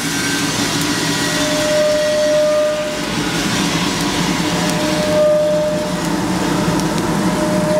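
Probat drum roaster dropping a batch of freshly roasted coffee beans, just past second crack, into its cooling tray: a steady rushing hiss of beans pouring and tumbling under the turning stirring arms, starting abruptly as the door opens. A short steady tone recurs about every three seconds.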